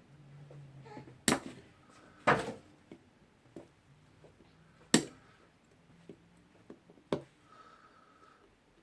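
Sharp metal clicks, four of them one to three seconds apart, as pliers work at the retaining ring on the rotor of an Ingersoll Rand 2145QiMAX air impact wrench and slip off it. The ring is stubborn and not coming off.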